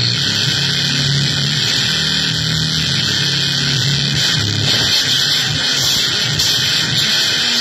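Electronic noise music from keyboard and electronics: a loud, dense wall of hiss over a low drone that shifts in pitch.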